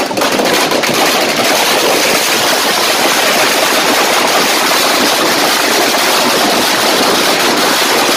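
A long string of firecrackers going off in a rapid, unbroken crackle that merges into a loud, steady din. Single bangs can be heard separately only near the end.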